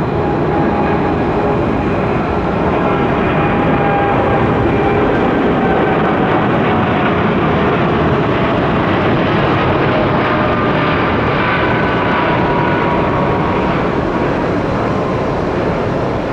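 Boeing 787 Dreamliner taking off at full thrust: a steady, loud jet roar from its twin turbofan engines through the takeoff roll, liftoff and climb-out, with a few whining tones that slide slowly down in pitch as it passes.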